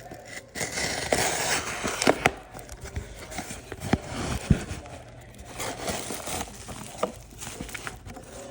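Packaging being handled and torn open: crinkling and tearing with scattered sharp clicks and knocks.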